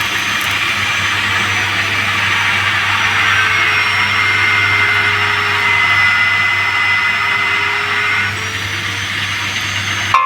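Stick (SMAW) welding arc crackling and hissing steadily as the final cap pass is run up a vertical test plate, with a steady low hum underneath. It eases a little just after eight seconds, and a short sharp click comes at the very end.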